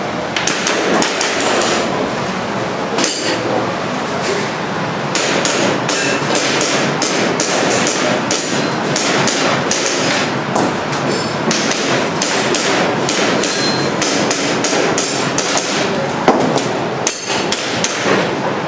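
Airsoft gun shots: many sharp cracks fired in quick, irregular strings with short pauses between them.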